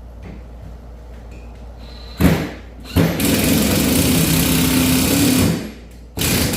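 DeWalt 20V XR 1/2-inch impact wrench driving a 4-inch deck screw into a 4x4, its hammer mechanism engaging under the load. There is a short pulse about two seconds in, then a steady run of about two and a half seconds, then another short burst near the end.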